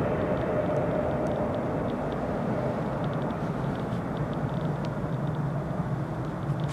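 Airbus A321-200 jet engines on landing approach: a steady rushing sound that slowly fades as the airliner descends toward touchdown, with a faint whine near the start that dies away.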